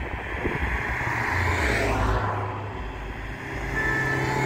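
A motor vehicle passing by: its engine hum and tyre noise swell to a peak about two seconds in and fade, and another vehicle approaches near the end.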